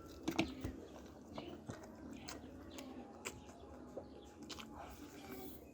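Close-up eating sounds: a person chewing braised pork and rice, with repeated wet mouth clicks and smacks. The loudest smacks come about half a second in.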